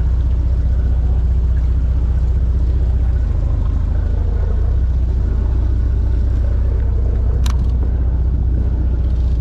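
Fishing boat's engine running with a steady low drone. A short sharp click about seven and a half seconds in.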